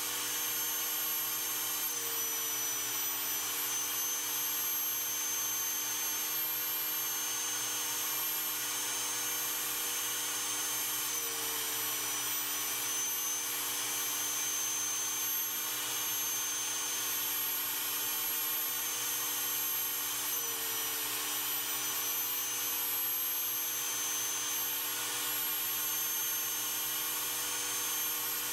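Compact router on a CNC machine cutting an inlay groove into an end-grain hardwood cutting board: a steady high-pitched whine whose pitch sags briefly three times as the bit takes load. A shop vacuum's dust-collection noise runs with it.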